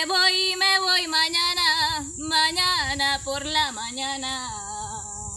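A woman singing unaccompanied: long, wavering notes with vibrato in two phrases, the last note held and fading out near the end.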